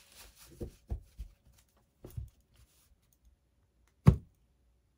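Tarot cards being handled and laid down on a tabletop: a few soft taps and light clicks in the first couple of seconds, then one sharper, louder tap about four seconds in.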